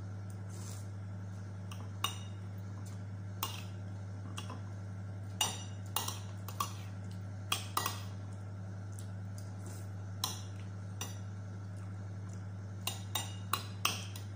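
Metal spoon clinking and scraping against a ceramic plate as a person eats, in irregular taps with a quick cluster of clinks near the end, over a steady low hum.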